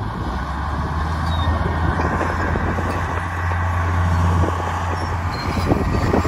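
Crawler bulldozer's diesel engine running under load with a steady low drone, as the dozer pushes through brush and small trees.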